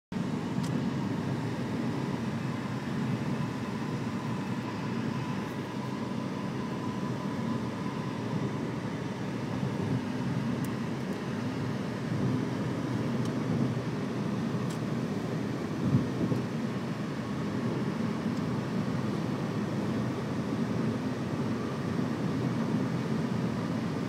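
Steady road and engine noise of a car driving at highway speed, heard from inside the cabin, with one brief thump about two-thirds of the way through.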